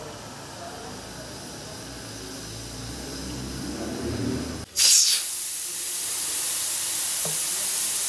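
Small gas-cylinder burner flame rumbling low under a pressure cooker. About halfway through, a loud, steady steam hiss starts suddenly from the cooker's vent pipe, with its weight off, and drowns out the flame.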